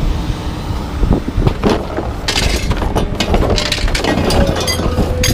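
A truck's engine runs with a steady low rumble under irregular metal clanks, knocks and scrapes as scrap metal is pulled off the truck bed. A thin squeal-like tone comes in near the end.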